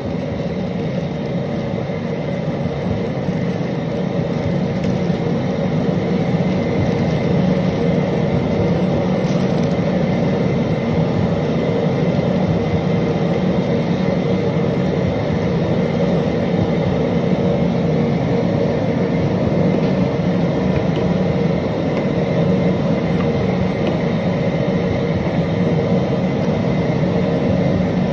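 Propane burner under a seafood boil pot, burning with a steady low rush of flame that swells slightly a few seconds in and then holds even.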